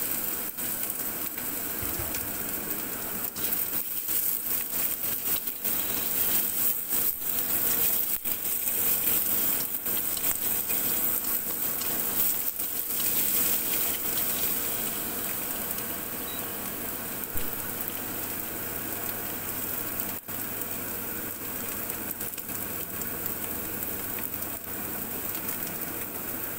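Sliced shiitake mushrooms, minced garlic and ginger sizzling steadily in hot oil in a wok, with scattered crackles, stir-fried and stirred now and then with chopsticks.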